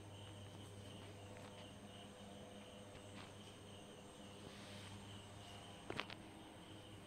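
Faint ambient sound: steady pulsing insect chirping over a low hum, with a short sharp click about six seconds in.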